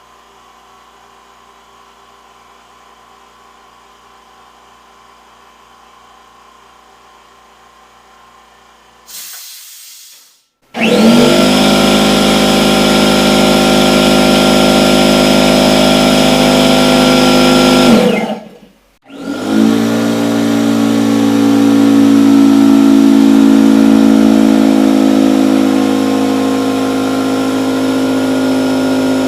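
A quiet, low-speed (1700 RPM) air compressor running with a faint steady hum. About a third of the way in, a much louder standard pancake air compressor takes over: it runs with a steady loud drone, cuts off abruptly for about a second, then starts up again and keeps running.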